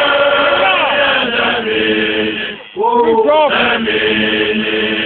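A group of voices chanting together in Xhosa style, holding long, overlapping notes, with a brief break about two and a half seconds in before the chant picks up again.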